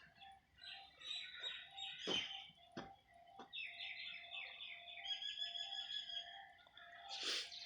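Small birds chirping in fast repeated trills, with a few sharp clicks, the loudest about two seconds in.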